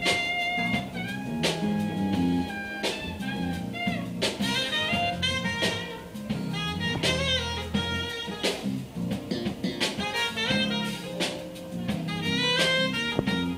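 Live jazz band playing: a saxophone carries the melody over a drum kit and electric guitar.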